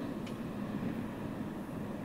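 Freight train rolling by on the rails, a steady rumble of wheels and cars with a faint click or two.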